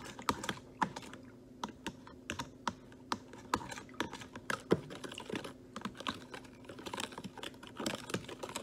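Irregular clicking and tapping of a kitchen utensil against a bowl while the yeast, sugar, salt and warm water are being prepared for puff puff dough, over a faint steady hum.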